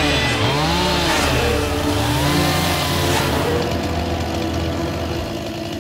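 Chainsaw engine revved up and down about three times in a row, each rev a rising then falling whine, then running at a steady pitch for the last couple of seconds.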